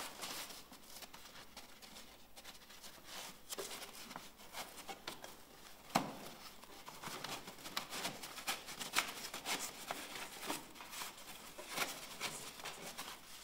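Breathable roofing membrane rustling faintly as it is worked by hand into a roof window's drainage gutter under a timber batten, with scattered light taps and one sharper knock about six seconds in.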